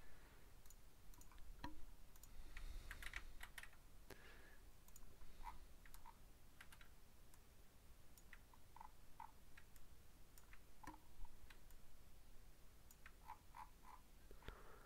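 Faint, scattered clicks of a computer mouse and keyboard, with quicker runs of clicks about three seconds in and again near the end.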